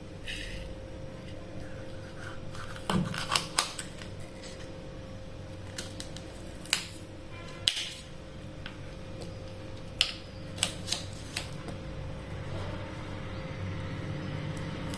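Knife chopping chayote (chow chow) on a cutting board: irregular sharp cutting strokes, a quick run of three or four about three seconds in, then single cuts with pauses between them.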